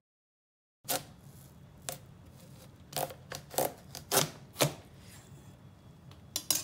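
A kitchen knife cutting into a small watermelon, the rind cracking in a series of short, sharp snaps as the melon splits open. The sound starts about a second in.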